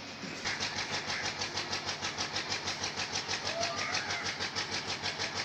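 An engine running steadily with an even, rapid pulse of about six beats a second, starting about half a second in.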